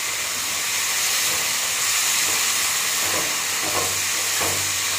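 Cubed potatoes and capsicum sizzling in hot oil in a metal wok on a high gas flame: a steady hiss. A metal spatula stirs and scrapes against the pan a few times in the second half.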